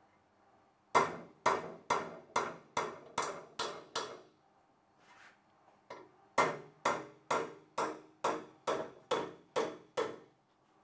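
Copper-faced hammer striking a pin punch against the cast-iron Holden V8 block, in two runs of about eight to ten sharp taps, roughly two a second, with a pause of about two seconds between them. It is punching dimples into the rear main seal groove so that the rope seal cannot walk around.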